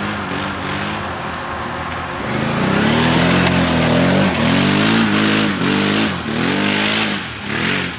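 ATV engine revving hard on a steep dirt climb, getting louder about two seconds in, then rising and falling in pitch in several surges as the wheels spin and throw dirt.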